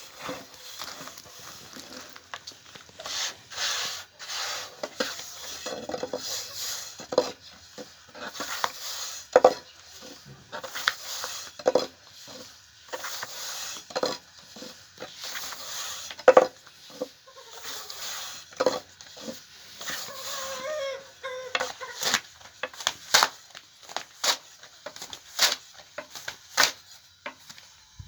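Irregular clatter of kitchen utensils: many sharp knocks and clicks of metal on pots and dishes, with some scraping and stirring between them.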